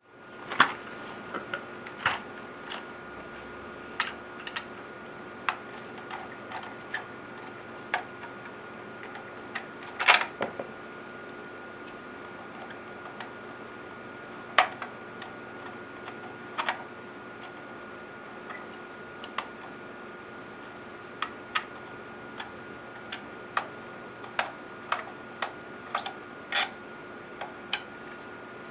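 Irregular sharp clicks and taps over a steady hum with two constant tones.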